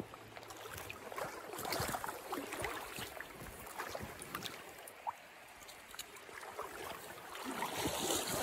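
Shallow river water lapping and sloshing, with light, irregular splashes from a hooked trout fighting near the surface; the splashing swells about two seconds in and again near the end.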